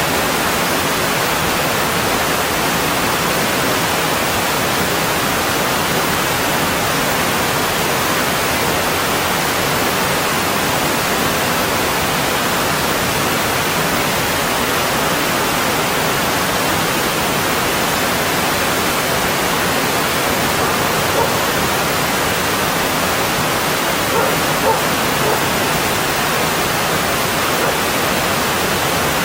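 Mountain stream water rushing over rocks in a loud, steady wash.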